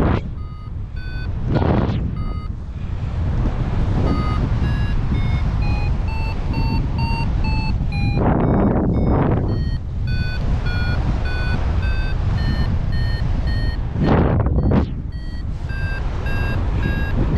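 Paraglider variometer beeping about twice a second, its pitch stepping up and down, the beeping that signals climbing in lift. Heavy wind buffets the microphone throughout, with strong gusts about halfway through and near the end that swamp the beeps.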